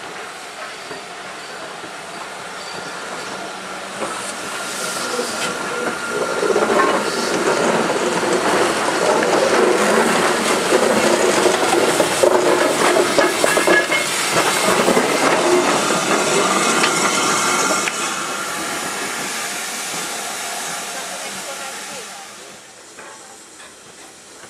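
Steam-hauled passenger train passing close along the platform: the locomotive and carriages rumble and clatter over the rails, growing louder for a few seconds, staying loud for about ten seconds, then fading away.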